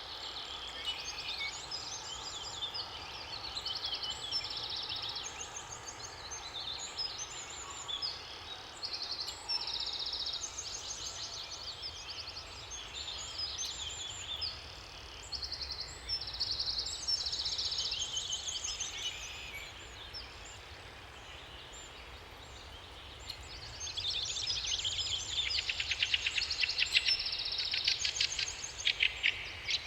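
Several songbirds singing in overlapping short, repeated high phrases over a steady low background hiss. The song thins out about two-thirds through, then a louder, denser run of rapid trills comes in near the end.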